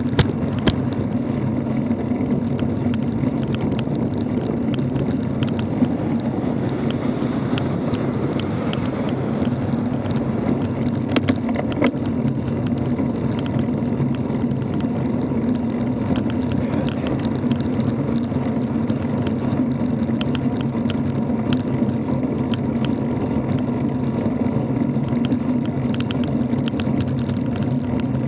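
Steady rumble of a road bike rolling along asphalt, with wind buffeting the bike-mounted camera's microphone and small clicks and rattles from the mount throughout.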